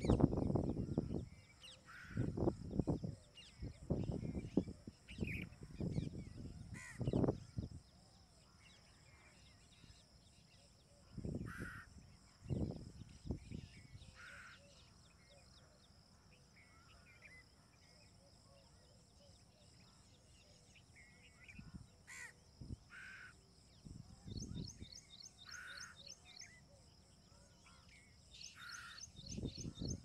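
Birds giving short calls now and then over a steady high insect drone, with loud low rumbling buffets coming and going, heaviest in the first several seconds.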